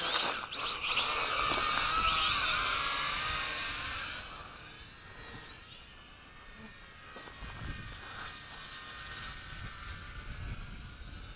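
Small quadcopter drone (WLToys V686G) with its electric motors and propellers whining, the pitch rising and falling as the throttle changes. The whine is loud for about the first four seconds, then fades as the drone flies away, leaving a faint whine under wind rumble on the microphone.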